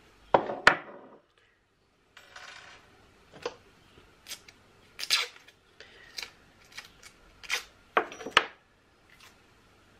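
Sharp metallic clicks and clinks of jig hooks and a metal jig-head casting mould being handled and set down on a workbench, with a short rasp of paper masking tape being pulled from its roll about two seconds in.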